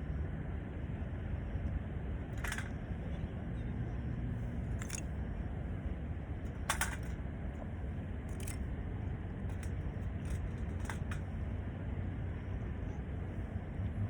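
Wood campfire burning, with irregular sharp pops and crackles every second or two over a steady low rumble.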